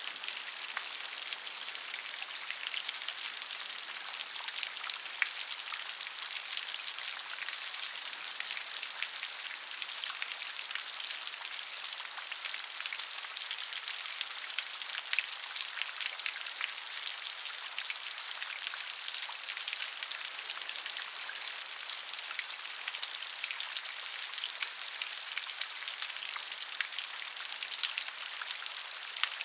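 Steady rain falling, a dense even hiss with many small drop impacts.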